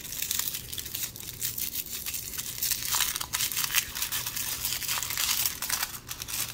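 A small pink accessory wrapper torn open and crinkled between the fingers: a dense, uneven crackling rustle.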